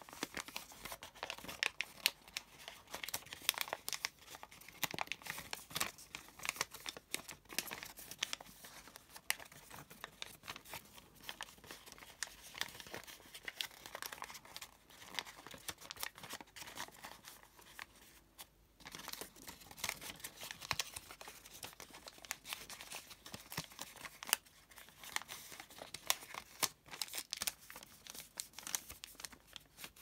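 Thin origami paper crinkling and rustling in a dense run of small, irregular crackles as hands fold and collapse a heavily creased model, with a brief lull about two-thirds of the way through.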